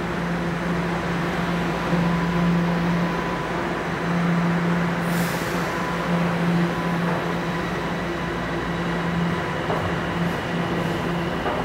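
Steady mechanical hum of station machinery, with several steady tones through it and a short hiss about five seconds in.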